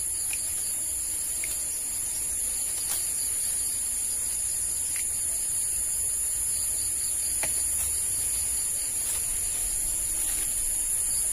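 Steady high-pitched insect chorus of crickets, with a low rumble and a few faint clicks scattered through as small twigs are trimmed off a bonsai stock.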